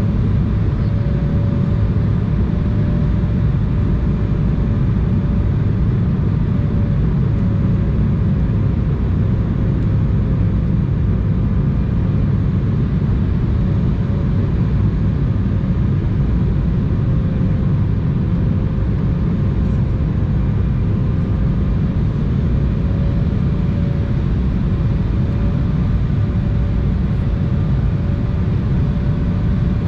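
Steady cabin noise inside an Embraer 175 airliner on approach: a low rumble of airflow and its GE CF34-8E turbofan engines, with a steady mid-pitched hum that wavers slightly in pitch.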